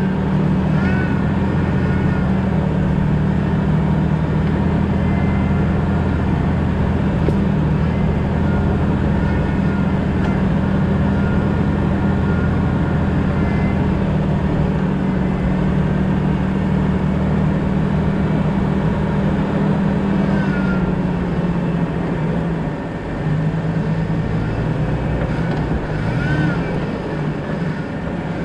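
Jeep Cherokee XJ driving with a steady engine drone and road noise; the engine note drops about two-thirds of the way through, as if easing off. A few faint short squeaks sound over it.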